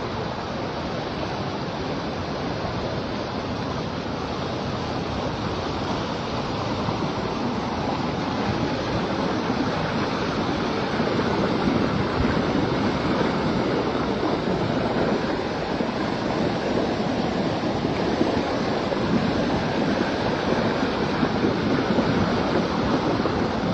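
Fast-moving floodwater rushing in a steady wash of noise, growing a little louder about halfway through.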